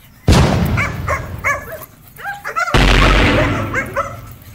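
Dogs play-fighting with short, high yips and barks. Two loud, sudden blasts of noise, about a quarter second in and just past the middle, each die away slowly under the calls.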